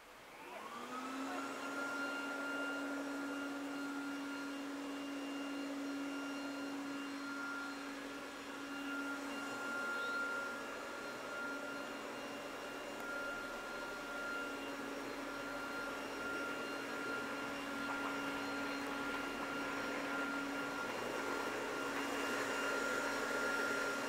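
A motor spins up in about a second, then runs steadily with a constant whine.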